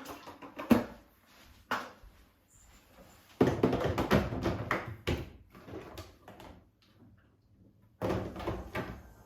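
Handling the LG Styler's plastic drain tank and a door: a series of knocks and clicks, a longer stretch of clatter about three and a half seconds in, and another burst of thuds near the end.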